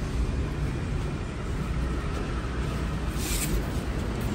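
Steady low machine rumble and hum of workshop machinery, with a short rasping noise about three seconds in.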